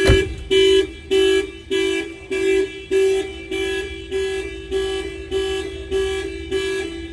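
Aftermarket Clifford car alarm, tripped by the door being opened while armed, sounding the car's horn in steady, even honks of one pitch, about three every two seconds.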